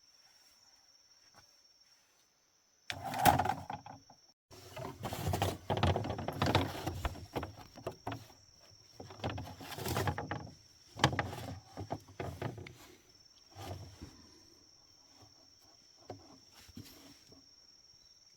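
Irregular rustling and knocking of something being handled, in uneven spells that die away near the end, over a steady high insect drone.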